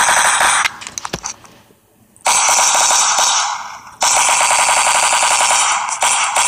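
Machine-gun fire sound effect in rapid, evenly spaced bursts with almost no bass: a short burst at the start, a few scattered shots about a second in, then long bursts from about two seconds in and again from four seconds in.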